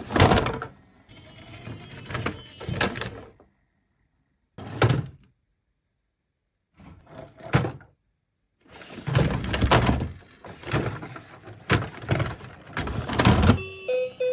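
Plastic clattering and knocks from a miniature toy ambulance being handled and rolled, in several bursts with silent gaps between them. Near the end a stepped, rising tone begins.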